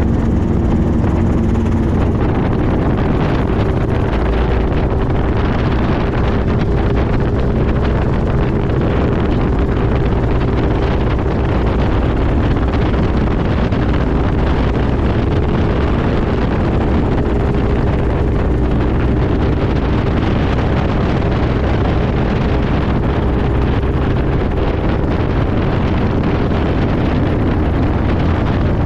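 Robinson R22 helicopter heard from inside the cockpit: steady engine and main-rotor noise under heavy wind rush, during a practice autorotation that simulates an engine failure. The mix of engine tones changes about two seconds in, then holds steady.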